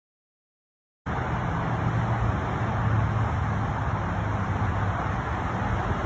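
Silence, then about a second in a steady wash of road traffic noise with a low hum cuts in suddenly and runs on evenly.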